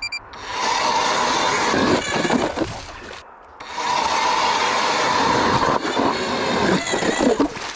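StrikeMaster battery-powered electric ice auger drilling through lake ice: the motor's whine and the blades grinding ice chips. It runs in two spells, with a brief stop a little after three seconds in. A short beep sounds at the very start.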